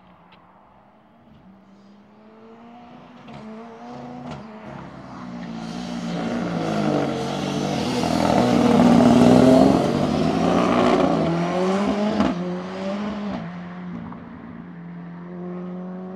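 Hillclimb race car driving past at speed. The engine note climbs and drops with each gear change, grows louder as the car approaches, is loudest a little past halfway, then fades as it goes on up the course.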